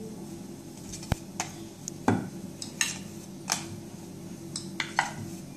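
Rolling pin rolling out paratha dough on a round steel rolling base, clicking and knocking against the metal about seven times at uneven intervals. A steady low hum sits underneath.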